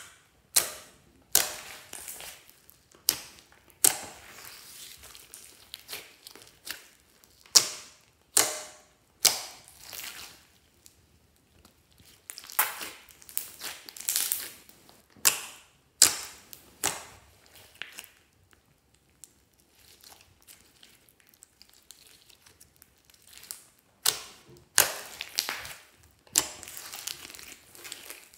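Hands pressing, squeezing and folding glossy slime with small beads mixed in: sharp pops as trapped air bursts under the fingers, about one a second, between softer wet crackling and squishing. There is a quieter stretch of only soft crackles about two-thirds of the way through.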